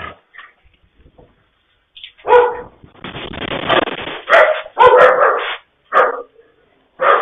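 A dog barking in a run of loud, short barks that start about two seconds in, heard through a surveillance camera's microphone with a thin, band-limited sound.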